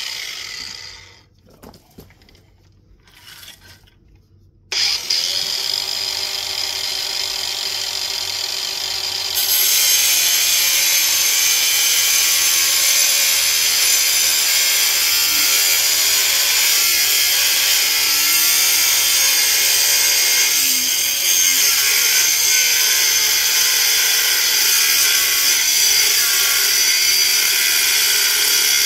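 A power tool's cut-off wheel cutting an aluminum plate. After a click and some handling sounds, the wheel starts about five seconds in with a steady grinding noise. It gets louder about four seconds later and holds steady to the end.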